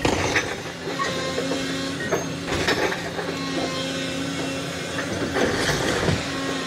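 Excavator running under load while tearing down an old wooden house: a steady engine and hydraulic drone with a held tone that rises and drops away in stretches, broken by repeated cracks and crunches of splintering timber.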